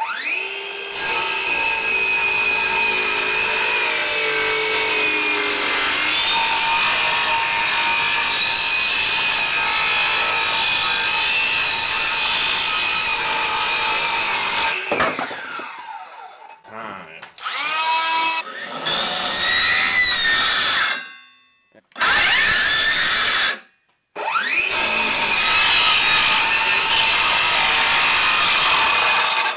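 Ryobi brushless cordless circular saw spinning up with a rising whine and cutting through a door for about fifteen seconds, then winding down. After that come a few shorter circular-saw runs, each starting with a rising whine and cut off abruptly.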